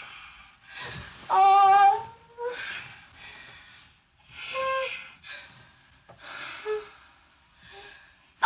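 A woman gasping and breathing hard in bursts about once a second, several breaths carrying a short high whimper; the loudest whimper comes between one and two seconds in.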